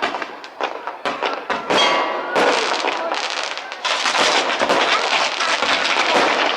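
Fireworks going off in quick succession: sharp bangs, then dense crackling that runs on from about a third of the way in.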